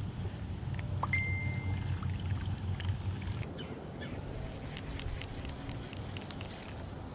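Baitcasting reel being cranked to retrieve a lure, with water trickling and a steady low rumble. About a second in there is one short high whistle that rises and then holds. Light irregular clicks run through the second half.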